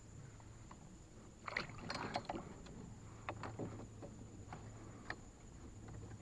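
Scattered knocks and clatter against a canoe's hull, a short cluster of them about a second and a half in and a few single knocks after.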